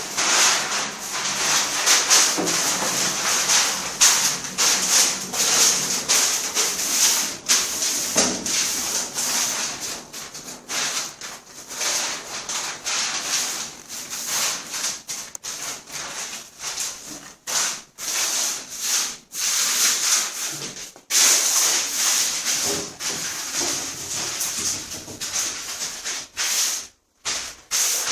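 Repeated abrasive rubbing strokes on a bathtub floor being repaired, like hand sanding, in an irregular back-and-forth rhythm with a brief break near the end.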